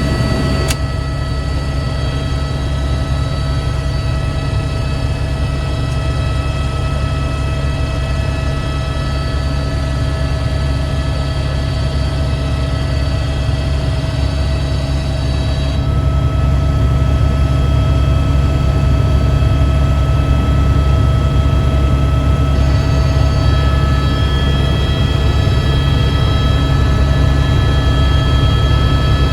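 Helicopter in flight heard from on board: a steady, loud engine and rotor rumble with several steady whining tones over it, growing slightly louder about halfway through.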